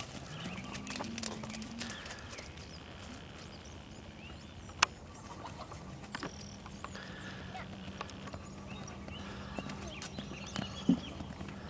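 A pony's hooves cantering on grass, an uneven patter of soft hoofbeats, with two sharp knocks, one about five seconds in and a louder one near the end.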